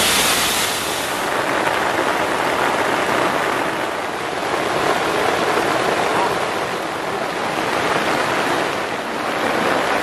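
Waterfall rushing: a steady noise of falling water that swells and eases slightly in strength.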